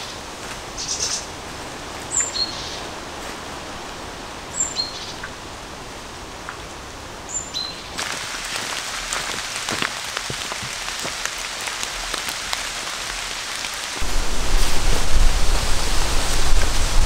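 A bird repeats a short, high, falling two-note call about every two and a half seconds over a steady hiss. About eight seconds in, the sound changes to rain falling with a dense patter of drops. About fourteen seconds in, a loud low rumble joins it.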